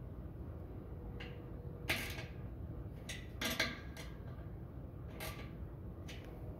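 Ratchet wrench clicking in a handful of short, irregular bursts as a sensor-bracket bolt is tightened, over a steady low hum.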